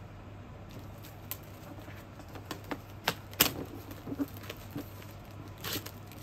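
Cardboard subscription box and its paper contents being handled: scattered clicks, taps and light rustling of cardboard and paper, with a sharper snap about three and a half seconds in.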